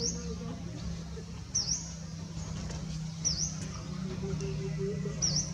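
A short, high-pitched chirp that dips and rises again, repeated four times at a steady pace about every one and a half to two seconds, over a low steady hum.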